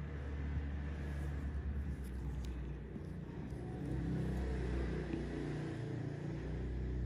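A low, steady rumble that swells about four seconds in, with a couple of faint clicks about two seconds in.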